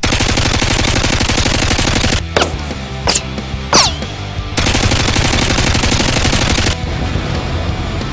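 Automatic rifle fire sound effect: a rapid burst of about two seconds, a break with three short falling whistles, then a second burst of about two seconds.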